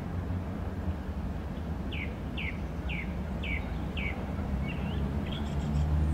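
A songbird gives a run of six or seven short falling chirps, about two a second, over a steady low rumble of town ambience.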